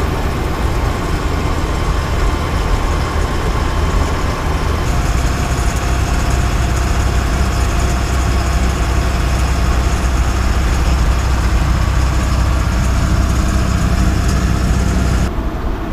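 Land Rover running steadily at cruising speed while towing a travel trailer, with a constant low engine and road rumble.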